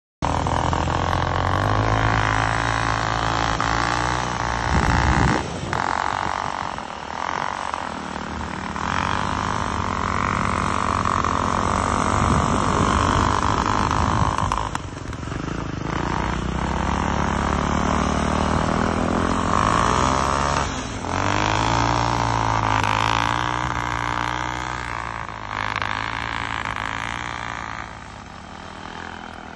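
Motorcycle engines of track-kit snow bikes running and revving as they ride over snow, the pitch repeatedly climbing and dropping with the throttle. The sound dips briefly several times and grows quieter near the end.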